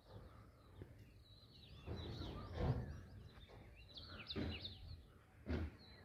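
Small birds chirping and twittering in the early morning, many short, quick notes sliding up and down in pitch, over a low outdoor background. A few brief low bumps come through, the strongest about two and a half seconds in.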